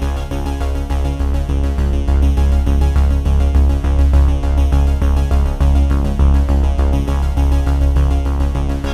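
Background electronic music with a synthesizer melody over a heavy steady bass beat.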